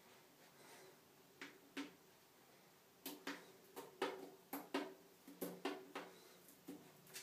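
Faint, irregular taps and clicks of a cat's claws and paws against a glass mirror and shelf: a couple about a second and a half in, then a quick run of a dozen or so from about three seconds in.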